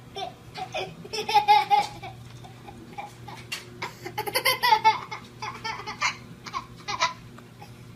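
A baby laughing in short, rapid, high-pitched bursts, twice: about a second and a half in and again around five seconds, with smaller vocal sounds between.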